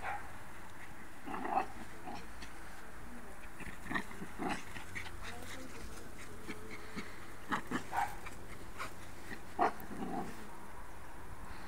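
Small Maltese dogs giving short, scattered yaps as they chase each other in play, the loudest near the end.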